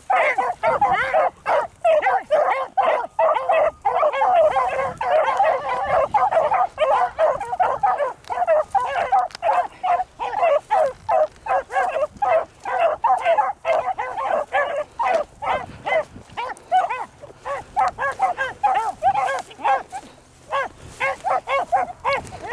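A pack of beagles baying in full cry while running a rabbit, many hound voices overlapping. The cry is thickest through the middle and thins to more separate calls in the last several seconds.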